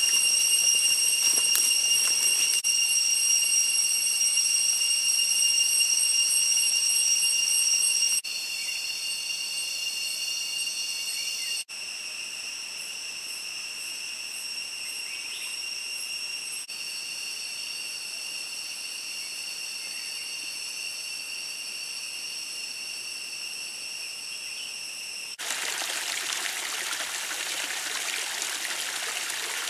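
Steady high-pitched drone of jungle cicadas, several shrill tones at once, dropping abruptly in level a few times. Near the end it gives way to the rushing of a shallow forest stream.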